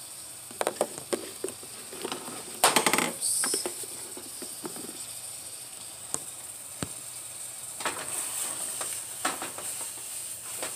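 Ground chuck and chopped onion sizzling in a frying pan, with a utensil scraping and tapping as the meat is broken up. A louder clatter comes about three seconds in.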